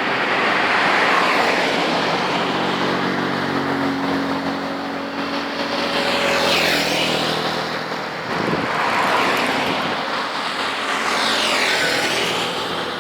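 Road traffic: about four vehicles going by one after another, each swelling and fading as it passes, with tyre noise over engine hum.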